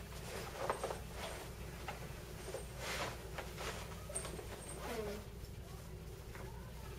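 Quiet room tone with a low steady hum and a few faint, brief rustling noises.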